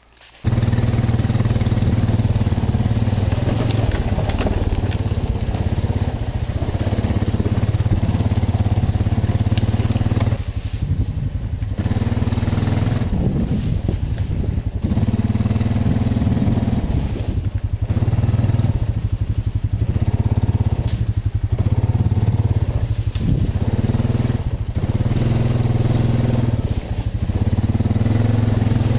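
Honda Rancher 420 ATV's single-cylinder engine riding a rocky trail, cutting in abruptly just after the start and easing off and picking back up several times as the throttle changes, with a few sharp knocks.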